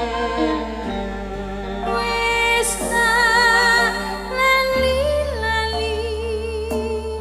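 Campursari music: a slow melody sung with vibrato over held keyboard-like chords and a low bass line whose note changes twice.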